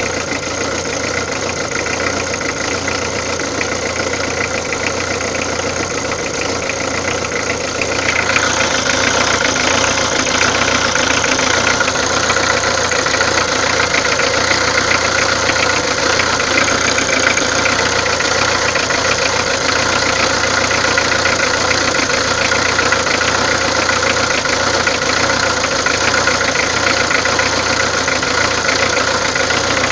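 Peugeot diesel engine running steadily with an unwanted engine noise. About eight seconds in, the sound gets louder and brighter and stays that way.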